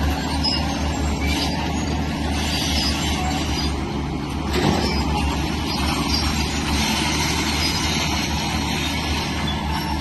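Heavy diesel earthmoving machinery working: a steady low engine drone with a harsh, noisy metallic layer above it, and one short knock a little before halfway.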